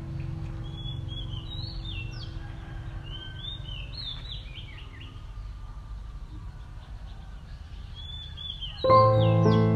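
Birds chirping in short swooping notes, repeated many times over a low outdoor rumble. Background music fades out during the first few seconds and comes back in loudly near the end.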